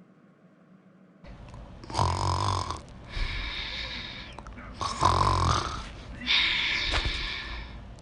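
A person snoring, starting about a second in. Each cycle is a low, rough snore on the breath in, then a higher breath out, repeating about every three seconds.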